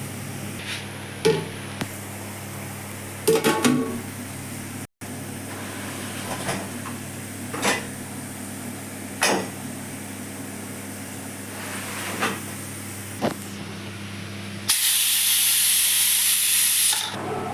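Spoon scraping and stirring in a pot of chicken gravy: a handful of separate scrapes and clinks over a steady low hum. Near the end, a loud hiss lasts about two seconds.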